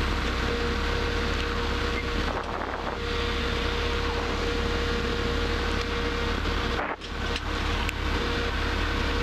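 Robin DR400 light aircraft's piston engine and propeller running steadily, heard inside the cockpit as a constant drone with a thin steady whine over it and a brief dip in level twice.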